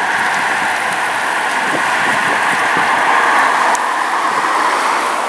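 Airbus A320 jet engines at takeoff thrust, a steady loud roar with a faint steady whine running through it.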